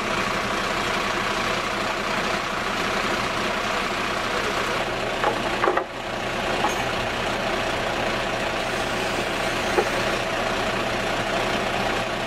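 Fire engine idling with a steady hum, with a few faint clicks and a brief dip about halfway through.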